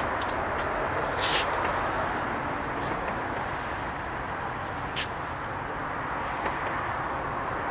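Steady background noise with a few light clicks and short scrapes as graphite ingot-mold pieces are lifted, knocked together and handled.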